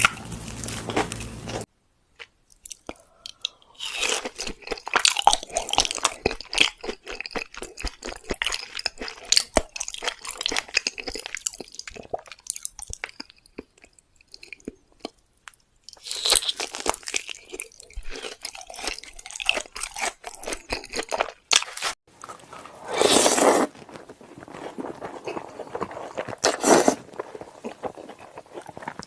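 Close-miked chewing of crunchy food: bursts of crackling crunches, broken by short pauses.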